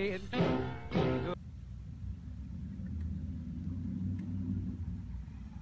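Background music with guitar that cuts off abruptly about a second and a half in, leaving only a low steady rumble.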